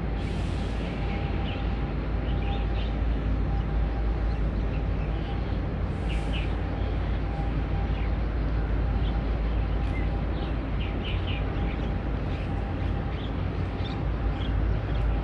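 Steady low rumble of outdoor ambience with a faint steady hum, and short high bird chirps scattered throughout.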